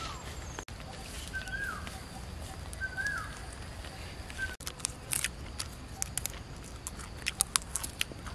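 A bird's short whistled call, rising and then dropping in pitch, comes three times over a faint steady high tone. In the second half comes a string of sharp clicks and snaps, loudest a little before the end.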